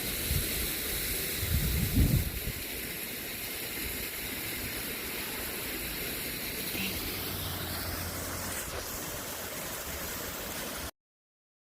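Steady rush of water from a partly frozen waterfall. There are a few low bumps on the microphone in the first couple of seconds, and the sound cuts off to silence near the end.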